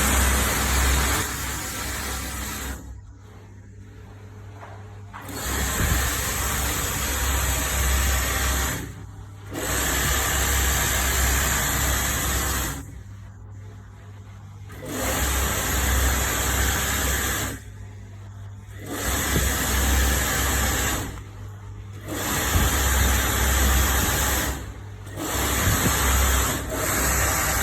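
Three-head hair weft sewing machine running in stretches of a few seconds, stopping and starting again several times, with a steady low hum under it. It runs smoothly after servicing.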